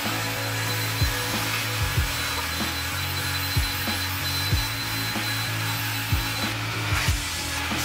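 Cordless DeWalt drill spinning a scrub brush against wet car carpet, with a thin steady motor whine that stops near the end. Background music with a regular low beat plays under it.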